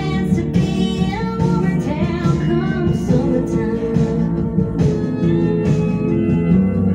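Country song with female singing and guitar, played back from a vinyl record on a turntable.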